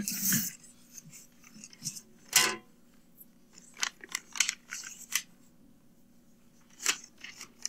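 Paper rustling in short, crisp strokes, with a quick cluster of them about four to five seconds in, as an envelope is opened and the letter inside is taken out.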